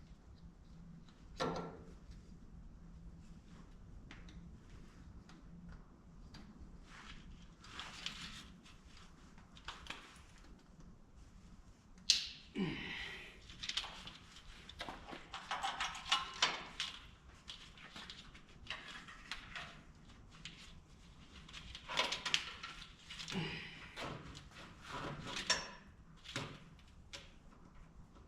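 Intermittent clicks, knocks and rustling from hand work with tools and wiring on the truck's engine bay. Sparse at first, then busier about halfway through, with a short squeak sliding down in pitch.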